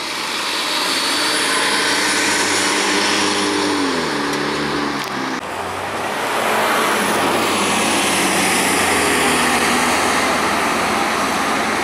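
Diesel transit bus engines running loud with a high whine over them. The first bus's engine note drops in pitch about four seconds in, and after a cut a second bus is heard accelerating away.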